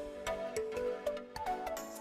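Background music: a melodic instrumental track with a steady beat.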